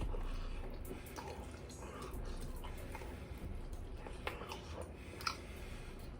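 Wet, sticky mouth sounds of someone eating sauce-covered chicken wings: chewing and lip smacks, with a few small scattered clicks over a low steady hum.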